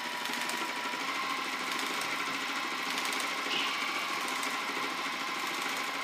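Juki sewing machine running steadily at speed, the needle stitching in a rapid, even rhythm as the fabric is guided by hand in free-motion quilting.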